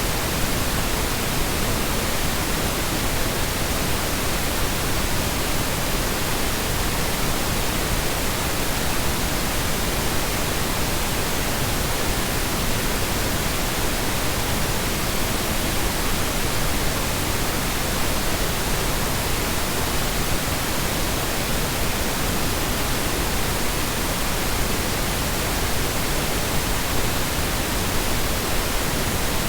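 Synthetic colour noise: a steady, even hiss spread over low and high pitches alike, with no changes, loops or other sounds.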